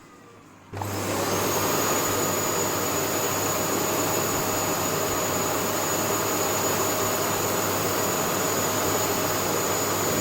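Vacuum cleaner switched on just under a second in, then running steadily with a loud rushing sound and a high whine.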